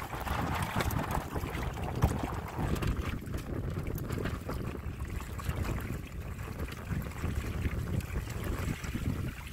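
Wind rumbling on the microphone over the wash of water along the hull of a Windrider 17 trimaran under sail, with one sharp knock about two seconds in.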